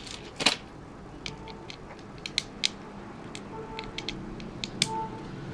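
Irregular sharp clicks and taps of fingers handling an opened BlackBerry phone's plastic frame and internal parts, about a dozen in all, the loudest about half a second in.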